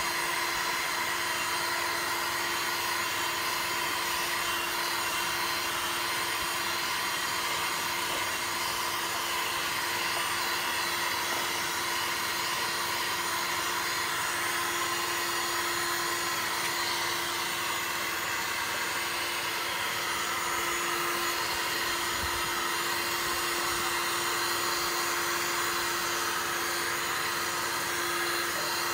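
Corded electric heat gun running steadily, a continuous fan whir with a steady hum, blowing hot air onto a plastic jug.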